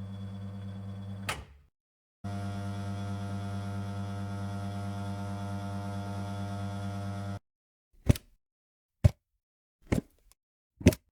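Electric coffee machine humming with a steady, slightly pulsing buzz. It cuts off with a click, starts again about two seconds in and runs for about five seconds before stopping. Then come four short sharp knocks, about a second apart.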